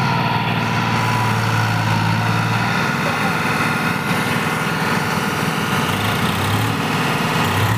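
Diesel tractor engines running under load as one tractor strains on a tow chain to pull another out of deep mud, the low engine note shifting about three seconds in.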